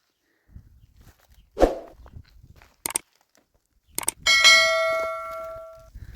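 A thud and a couple of sharp clicks, then a metal object is struck and rings with a clear, bell-like tone that fades away over about a second and a half.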